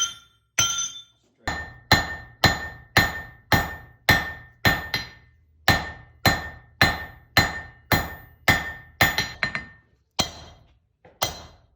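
Blacksmith's hand hammer striking a punch driven into hot wrought iron on the anvil, about two ringing metallic blows a second, with a few short pauses between runs of blows.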